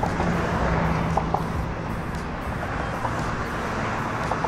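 Steady rumble of road traffic and vehicles around an open parking lot.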